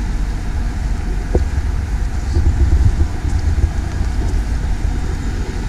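Low, uneven rumble of wind buffeting the microphone, over a faint steady hum of traffic.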